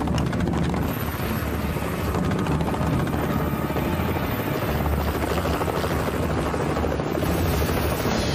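Large four-blade helicopter landing, its rotor chopping fast and steadily with a loud engine whine underneath.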